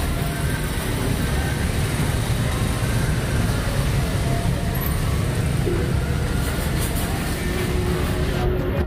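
Steady rumble of road traffic, heaviest in the low range, with no single event standing out.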